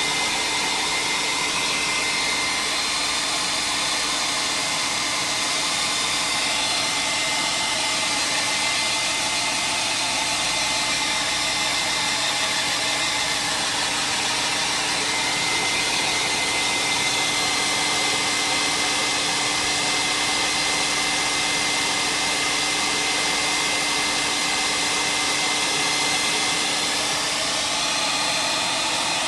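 Handheld electric hot-air dryer running steadily, a constant rush of air with a faint whine, drying wet paint on a journal page so it can be inked.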